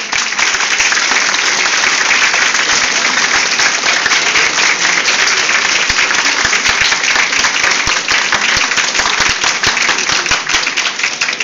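An audience applauding: a dense, steady mass of hand claps from many people.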